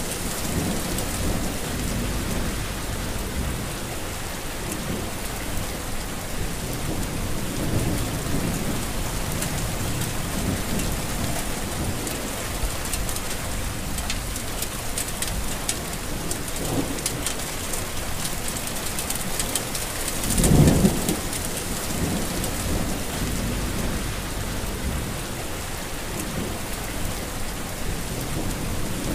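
Heavy rain falling steadily, a dense even hiss of drops. Low rumbles swell and fade every few seconds, the strongest one about twenty seconds in.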